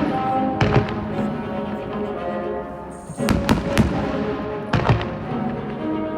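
Aerial firework shells bursting in several sharp booms, the biggest cluster about three to five seconds in, over music played for a fireworks show set to music.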